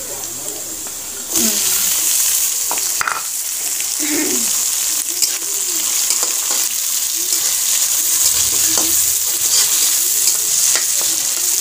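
Sliced onions sizzling in hot oil in a metal kadhai. About a second in the sizzle jumps louder as chopped tomatoes go into the oil, then a metal spatula scrapes and stirs against the pan again and again while it keeps frying.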